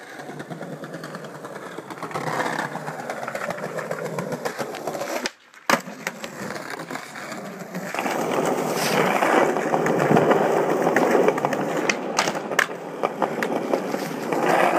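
Skateboard wheels rolling over stone paving tiles, a steady grinding rumble that grows louder in the second half, with a few sharp clacks of the board.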